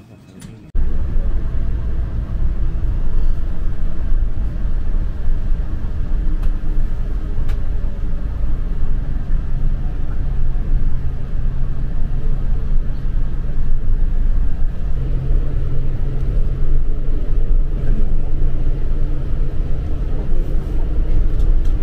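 Tour coach running along the road, heard inside the cabin: a steady low engine drone with road rumble. It starts abruptly just under a second in, and one low note of the engine grows louder about fifteen seconds in.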